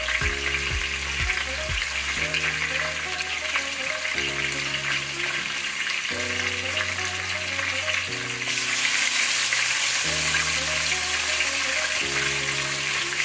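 Seasoned pork neck bones frying in hot oil in a pot: a steady sizzle that grows louder about eight seconds in, as another piece of meat goes into the oil. Soft background music plays underneath.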